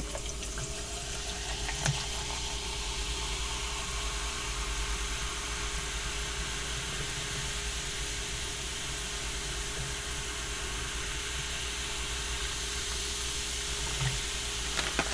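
Water pouring in a steady stream from a plastic bottle into a large plastic tumbler. The pour stops near the end.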